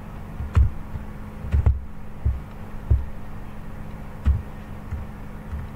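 Computer keyboard keystrokes: a handful of irregular, dull thumps as text is typed, over a steady low electrical hum.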